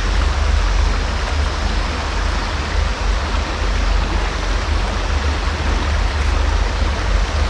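Steady rush of water from a small river rapid, with a low rumble underneath.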